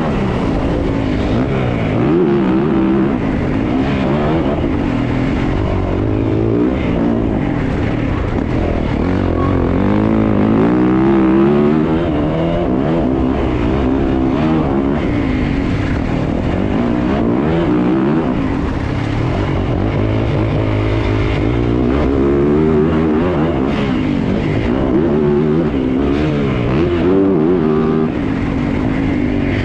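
Yamaha motocross bike's engine heard from on board, revving up and falling back again and again as the rider accelerates and backs off around the track.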